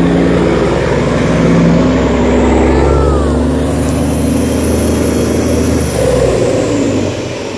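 Yanmar 829 hp diesel engine of a river ferry boat running with a deep rumble. Its pitch shifts about three seconds in, and it gets quieter near the end.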